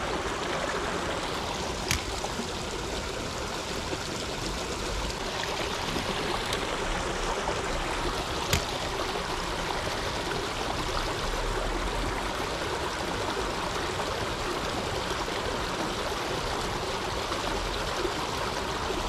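Small river's water rushing and trickling steadily, with two short clicks, about two seconds in and again near the middle.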